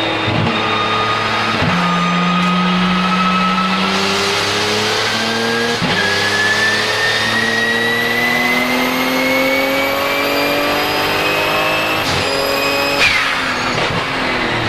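Onboard sound of the Porsche 997 GT2 RSR's twin-turbocharged 3.9-litre flat-six under hard acceleration, shifting up twice in the first six seconds and then pulling a long gear with the engine note climbing steadily. A high turbo whistle rises with it, and about thirteen seconds in the throttle closes and the engine note falls.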